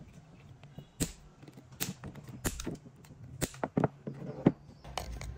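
Diagonal cutters snipping off the protruding ends of metal repair staples set into a plastic drill housing: a string of sharp snips at irregular intervals, the loudest about four and a half seconds in.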